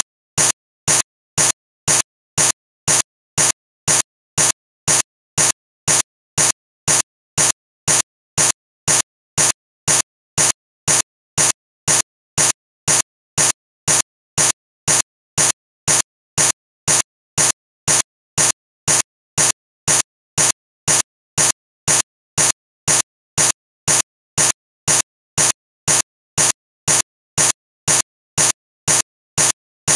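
Digital recording glitch: short, loud bursts of noise repeating evenly about twice a second with silence between them, the stutter of a corrupted video file.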